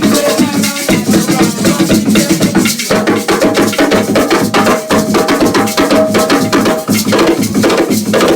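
Live hand drumming: fast, dense drum strikes with a sharp wood-block-like clicking, and a steady held tone from about three to seven seconds in.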